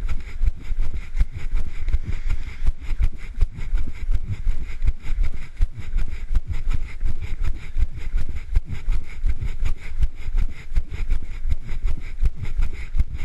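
Wind and handling noise on a camera microphone carried by a runner: a heavy rumble with regular thuds from the running strides, a few each second, throughout.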